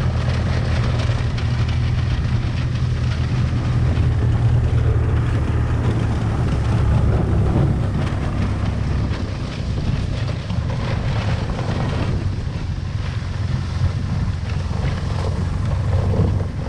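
Golf cart driving, its motor humming steadily, with wind on the microphone and scattered rattles and knocks.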